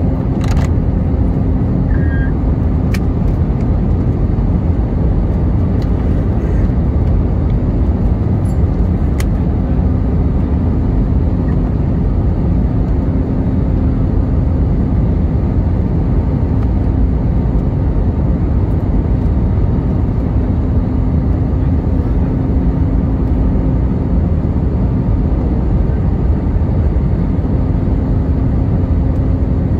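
Steady cabin noise of an Airbus A320-family airliner descending on approach: jet engines and rushing airflow heard from inside the cabin, with a faint steady hum underneath. A few faint clicks come in the first ten seconds.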